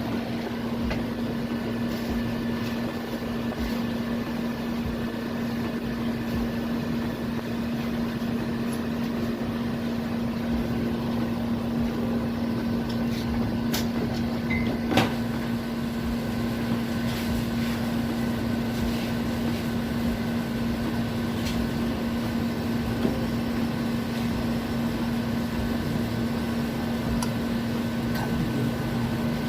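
Window-type Kelvinator air conditioner running with its compressor on: a steady hum with a fixed low tone. The compressor is running normally again and cooling, frost forming on the pipes. A sharp click about halfway through.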